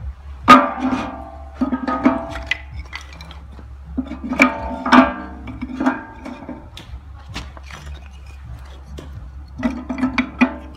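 Short wooden kindling sticks clacking against each other and knocking on the steel floor and walls of a wheel-rim stove's firebox as they are stacked in. The sharp, briefly ringing knocks come in irregular clusters, loudest about half a second in and again around four to five seconds in.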